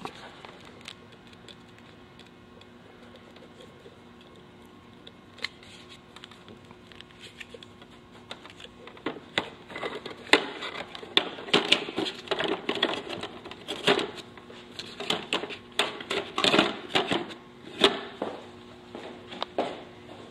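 Hands fitting a speaker into a motorcycle's plastic fairing: irregular plastic clicks, knocks and rattles, sparse at first and coming thick and fast from about nine seconds in, over a steady low hum.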